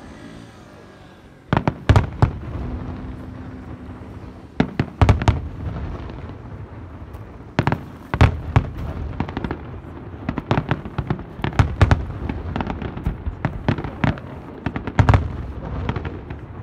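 Aerial firework shells bursting in a dense, rapid barrage of sharp bangs over a constant rumble of reports. The bangs thin out briefly at the start and come in close clusters from about a second and a half in.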